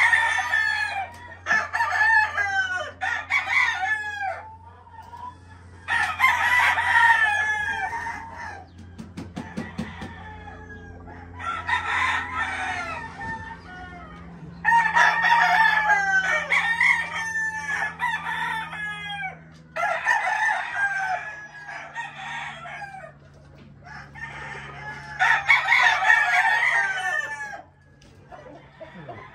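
Many gamecocks crowing over one another in overlapping bursts every few seconds, with a low steady hum underneath.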